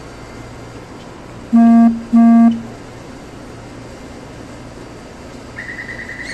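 Metro train horn sounding two short toots in quick succession, about one and a half seconds in, each under half a second. Near the end a rapid, high-pitched pulsing beep starts.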